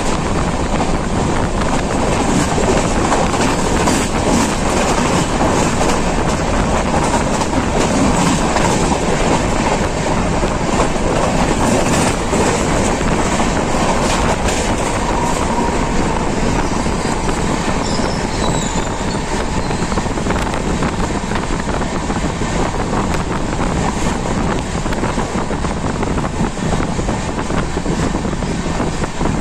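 Passenger express train running along the track, heard from on board: a steady loud rumble of wheels on rail, with faint ticks from the rail joints.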